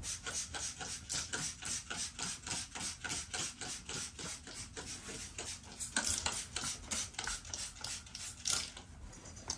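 Hand trigger spray bottle pumped rapidly, about four hissing squirts a second, misting chlorine dioxide solution (Vital Oxide) onto the back of a carpet; the squirting stops near the end.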